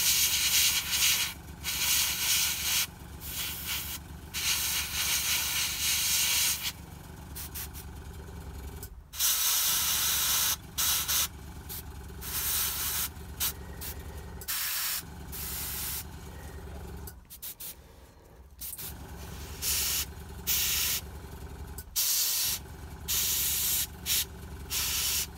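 Airbrush spraying paint in repeated bursts of hiss, starting and stopping as the trigger is worked, each from under a second to a few seconds long. A small air compressor hums steadily underneath, dropping out briefly a few times.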